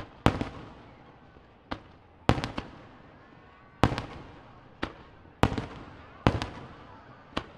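Aerial firework shells bursting: about ten sharp bangs at irregular intervals, some in quick pairs, each trailing off in a short echo.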